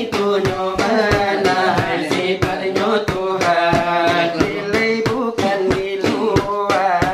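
Salawat dulang: voices chanting a melismatic Islamic verse in Minangkabau style, accompanied by the rapid, steady finger-beating of a large brass tray (dulang).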